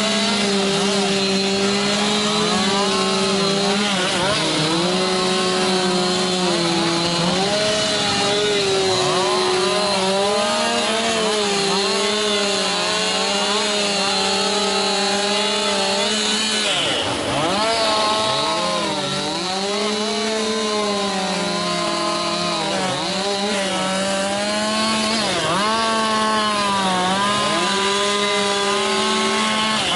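Several chainsaws running together as wood is carved. Their engine pitch keeps dipping under load and climbing back, with one deep bog about halfway through.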